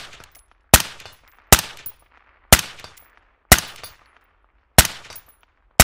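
Suppressed AR-style carbine with a Surefire SOCOM suppressor firing single shots at a slow, steady pace, about one a second, six in all. Each shot is a sharp crack that trails off in echo.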